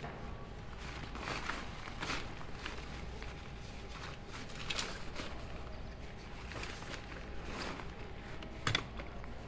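Scattered soft knocks at uneven intervals, about one a second, over a low steady hum.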